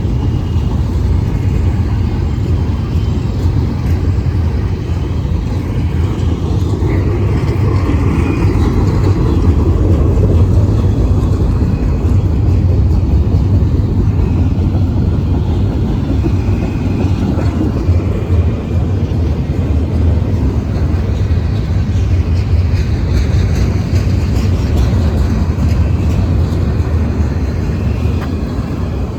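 Freight train rolling past with a steady low rumble, with a few faint high squeals from the wheels.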